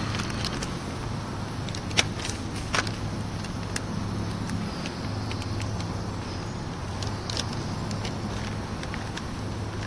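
Portable canister gas stove burning steadily under a pot of water: a steady low roar. A few light clicks and taps from small items being handled beside it, the sharpest about two seconds in.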